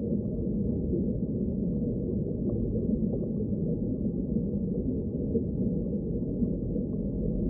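Designed science-fiction deep ambience: a dark, steady low rumble, muffled, with nothing above about 1 kHz and no distinct events.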